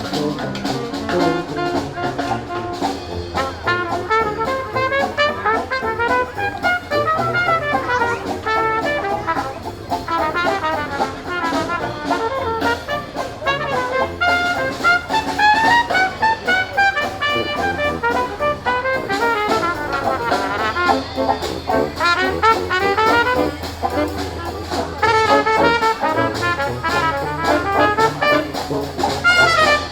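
Brass band playing a tune, with melody lines moving throughout.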